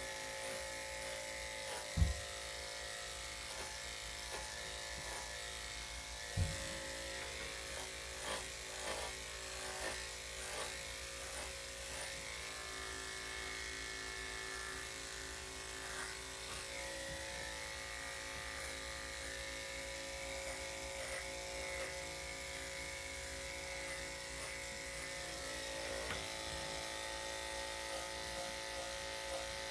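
Electric dog grooming clippers running steadily, a continuous motor hum as they shave a miniature poodle's coat. Two brief low thumps come about two and six seconds in.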